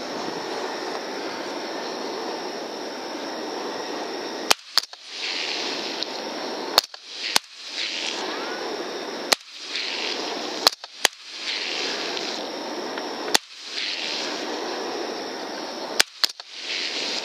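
Suppressed rifles firing at hogs, about ten sharp shots over some twelve seconds, several in quick pairs as two shooters fire close together. Between shots there is a steady background hiss that drops out briefly after each report.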